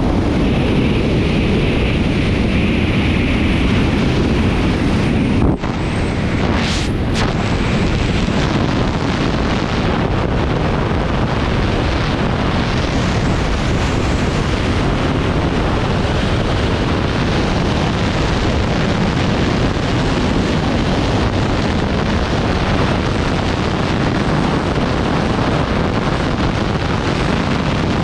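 Loud, steady rush of airflow buffeting the microphone of a camera worn by a wingsuit pilot in full flight, with one brief dip about five and a half seconds in.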